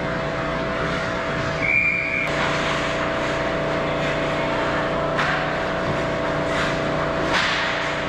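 Hockey skates scraping and stopping on rink ice, with a short referee's whistle blast about two seconds in, over a steady hum.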